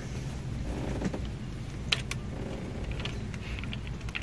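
A few faint, sharp clicks and taps of hand tools against an antenna coax cable and its fitting, with a low steady rumble underneath.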